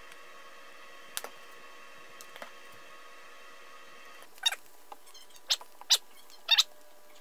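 Spatula scraping and stirring browned ground beef and onions in a nonstick skillet: four short squeaky strokes in the second half, each sliding down in pitch. Before them, only a faint hum and a couple of light clicks.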